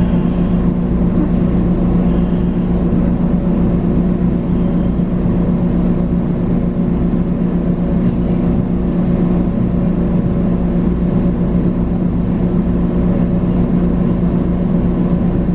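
Inside a Long Island Rail Road electric train car rolling slowly: a steady low hum with an even rumble underneath.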